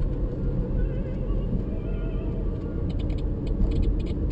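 Steady low road and engine rumble inside a moving car, with music playing faintly on the car radio.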